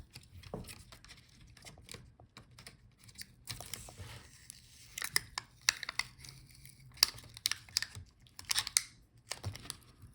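Hands handling a laptop's keyboard and palmrest assembly: irregular plastic clicks and scrapes, with stretches of tearing and crinkling noise.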